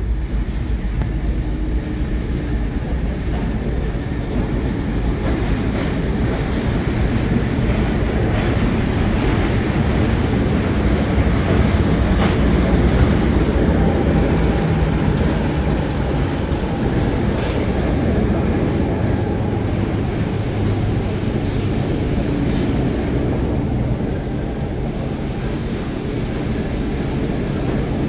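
Diesel shunting locomotive passing slowly on the rails. Its engine is a steady low drone that grows louder towards the middle as the locomotive draws level, then eases off.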